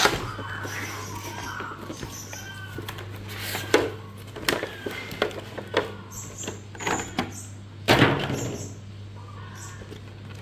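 Cardboard box and clear plastic packaging handled while being opened: flaps and the plastic tray crinkle, rustle and knock, with a run of sharp clacks around four seconds in and a loud rustle about eight seconds in. A steady low hum runs underneath.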